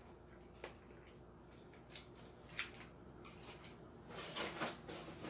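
Faint handling noise: a few scattered light clicks, then a stretch of rustling and clicking starting about four seconds in.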